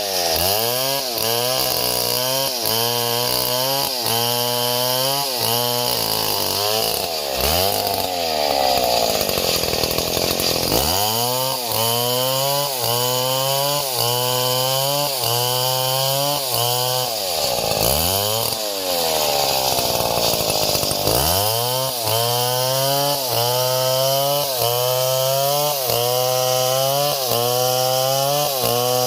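Small chainsaw engine running at speed, its note rising and falling in a steady rhythm a little faster than once a second. Twice the engine slows and then revs back up.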